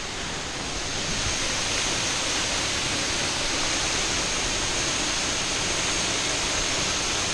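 Waterfall pouring: a steady, dense rush of falling water, growing a little louder about a second in and then holding even.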